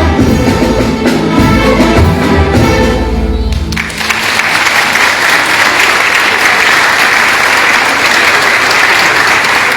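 Music with a low pulsing beat that stops abruptly about four seconds in, followed by an audience applauding.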